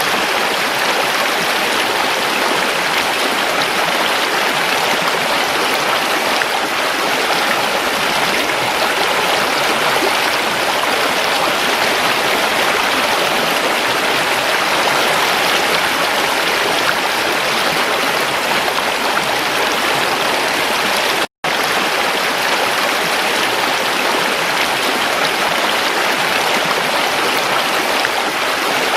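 Creek water running, a steady, even rushing babble. The sound cuts out completely for a split second about two-thirds of the way through, then resumes unchanged.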